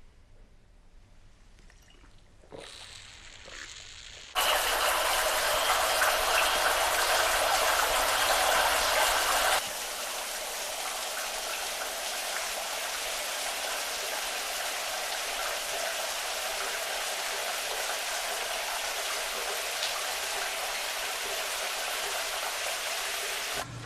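Steady rushing water noise, like heavy rain or running water, starting suddenly a few seconds in, dropping a little in level partway through, and cutting off abruptly near the end.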